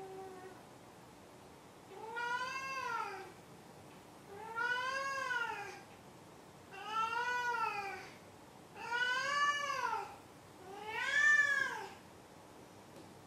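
A domestic cat meowing five times, each meow drawn out and rising then falling in pitch, about two seconds apart; the last is the loudest.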